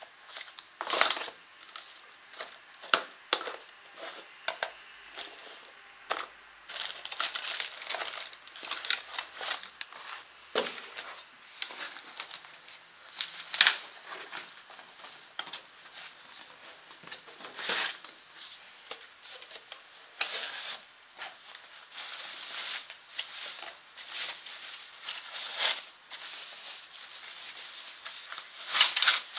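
Unboxing handling noise: paper manuals, a plastic wrapping bag and foam packing inserts rustling and crinkling inside a cardboard box, with scattered sharp clicks and knocks.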